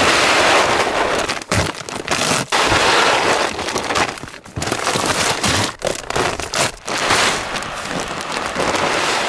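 Dry feed pellets pouring from a large feed bag into a plastic deer feeder's hopper, a steady rattling hiss with several brief breaks as the bag is shifted, along with the bag crinkling.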